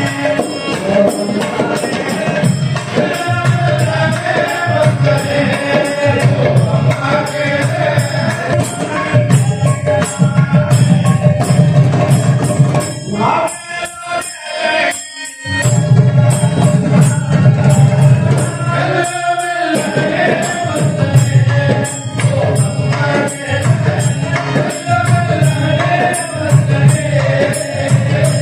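Devotional bhajan music: a group of men singing together to a harmonium, with jingling hand percussion. The sound drops out briefly twice around the middle.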